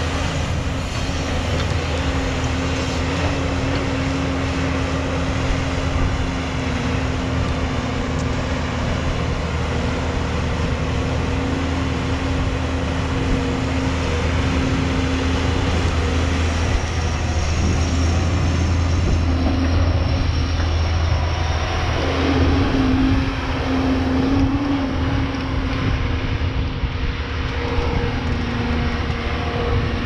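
JCB tracked excavator's diesel engine running steadily under working load as the machine swings and digs. Its engine note shifts about two-thirds of the way through.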